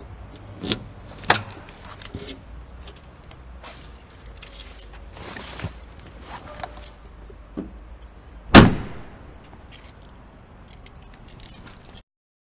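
A car's trunk being opened and shut: two sharp latch clicks about a second in, some rustling and handling of the lid, then the lid slammed shut about eight and a half seconds in, the loudest sound, ringing briefly.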